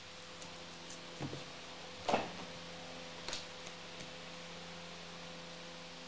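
A few short knocks and clicks from hands handling trading cards and a plastic card case on a desk, the loudest about two seconds in, over a steady low hum.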